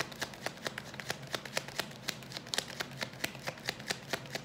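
A deck of tarot cards being shuffled by hand: a quick, irregular run of card slaps and clicks, several a second.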